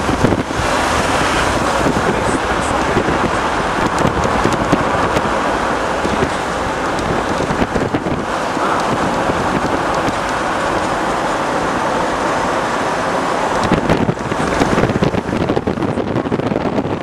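Steady road and wind noise heard from inside a moving vehicle, with wind rushing over the microphone. It grows more uneven near the end.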